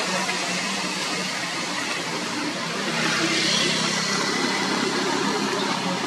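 Heavy diesel trucks approaching on a wet road: a steady engine drone under a broad tyre hiss, growing slightly louder about halfway through.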